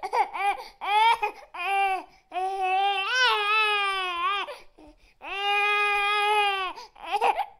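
A high-pitched voice crying: a run of short sobs, then two long drawn-out wails, and a few more short sobs near the end.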